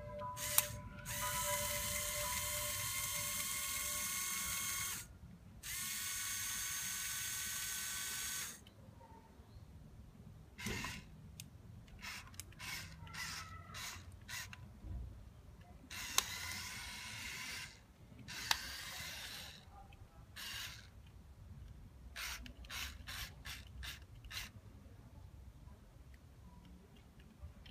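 Small electric motors and plastic gear trains of a radio-controlled Lego Technic 42042 crawler crane running. There are two long steady whining runs in the first eight seconds, then a series of short stop-start runs with clicks as the boom and grab are worked.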